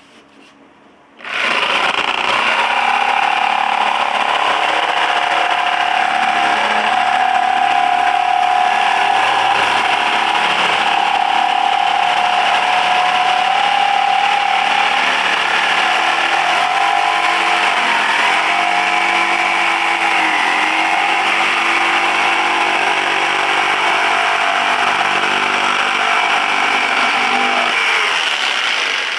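Black & Decker KS701PE 520 W corded jigsaw cutting a curve in half-inch marine plywood with its pendulum (orbital) action switched off. The motor starts about a second in and runs steadily through the cut, its pitch wavering briefly about two-thirds of the way through, then winds down near the end.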